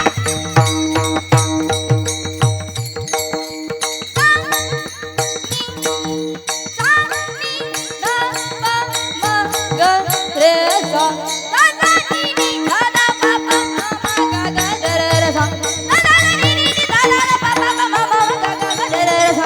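Devotional kirtan music: a melody moving in steps over a steady held drone, with a low drum and small cymbals or jingles keeping a brisk rhythm.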